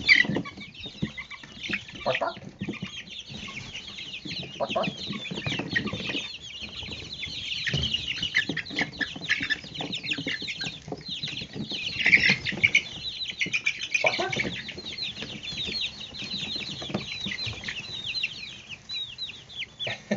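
A brood of five-week-old chicks peeping constantly, many high cheeps overlapping, with occasional thumps and rustles of movement among them.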